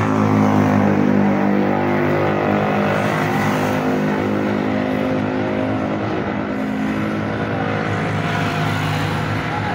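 A motor vehicle engine running steadily, a low droning hum with road traffic around it.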